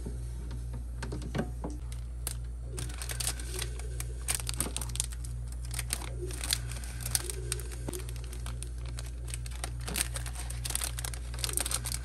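Plastic wrappers crinkling and rustling, with light plastic clicks and taps, as wrapped packages are handled and stacked in a mini fridge's freezer compartment, over a steady low hum.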